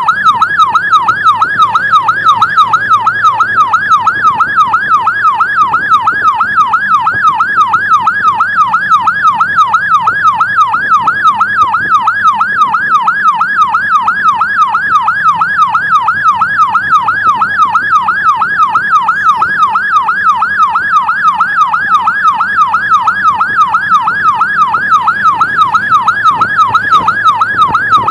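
Emergency-vehicle electronic siren in a fast, unbroken yelp: its pitch sweeps up and down a few times a second. It is loud and steady, over a faint low engine drone.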